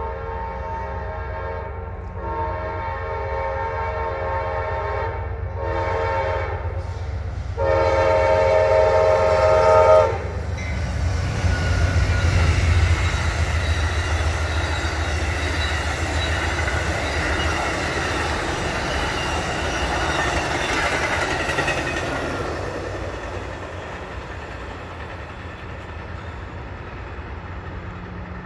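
Amtrak passenger train's locomotive horn sounding the long-long-short-long grade-crossing signal as it approaches. The last blast is the loudest and ends about ten seconds in. The passenger cars then rush past with wheel and rail noise, which fades as the train draws away near the end.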